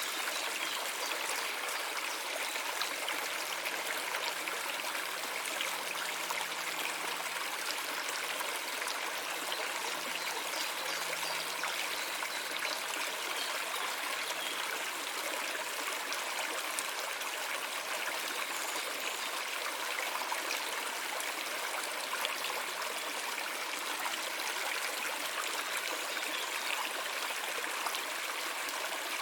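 A stream of running water flowing and trickling steadily over rocks.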